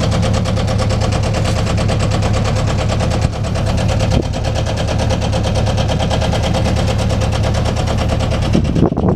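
A sailboat's auxiliary engine running steadily, a loud fast even rattle of firing pulses over a low hum. It cuts off suddenly just before the end.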